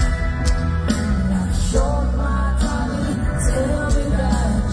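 Live rock band performing: a male singer's voice over bass guitar and drums, as heard from the crowd at an arena concert.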